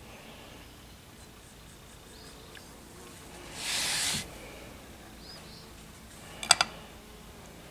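A short scraping swish as a potter's tool rubs across the plaster mold about halfway through. Near the end comes a quick cluster of sharp clicks, small hard objects handled on the wooden workbench.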